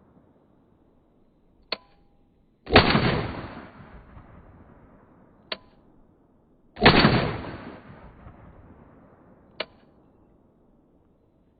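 Two gunshots from a Cobray M-11/9 9mm pistol, about four seconds apart, each ringing out and dying away over about a second. Three short sharp clicks come between and after them.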